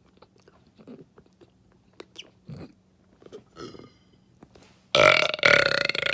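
A few faint mouth clicks, then a very loud, long human burp starting suddenly about five seconds in.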